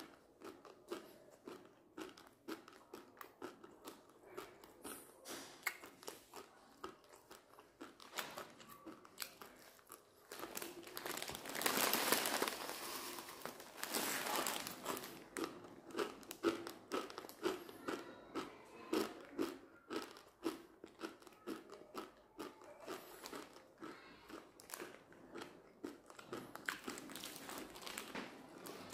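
Someone chewing dry, uncooked instant noodles straight from the packet, with a run of crisp crunching chews. Around the middle comes a louder stretch of plastic-wrapper crinkling as the packet is tipped up to the mouth.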